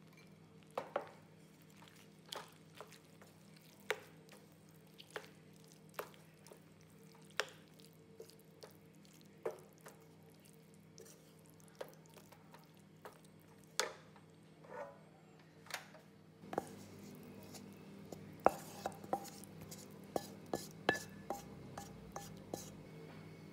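Wooden spatula stirring a thick chicken and vegetable pie filling in a stainless steel pan, knocking and scraping against the pan about once a second over a steady low hum. After about sixteen seconds the knocks come faster and louder as the filling is spooned into a glass baking dish.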